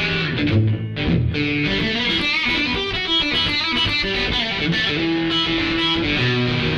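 Electric guitar, a Stratocaster through a Surprise Sound Lab Flex15 single-ended tube amp and 2x12 cabinet, playing a continuous blues phrase of single-note licks and chords. The amp's mid selector is at its last, most mid-heavy position, with the treble full up.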